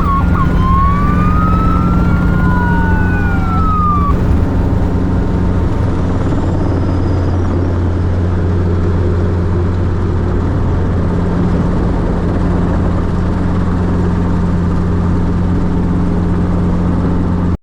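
Helicopter running with a steady, loud drone and a constant low hum. In the first four seconds, a few rising and falling whistle-like tones sound over it.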